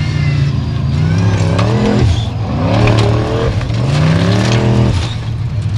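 Formula Offroad buggy's engine revving hard in three rising surges under full throttle as it claws up a steep sand wall, with sand and stones spraying. The revs fall away about five seconds in as the buggy tips over backwards.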